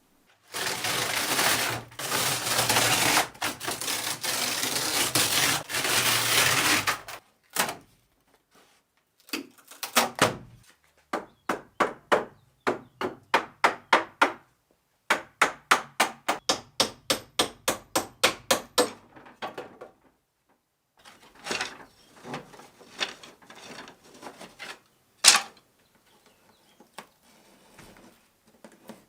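Woodworking on a cabinet: about seven seconds of continuous rough rubbing noise, then a run of sharp, evenly spaced knocks, two to three a second, followed by scattered single knocks, one loud knock near the end.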